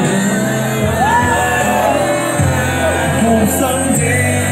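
Music with held, changing bass notes playing over a packed crowd's voices, with singing and scattered shouts.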